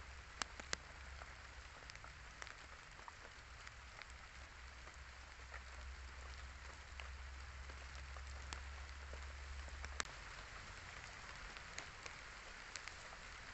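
Light rain falling: a steady faint hiss of drizzle with single drops ticking sharply now and then, a few close together near the start and one about ten seconds in.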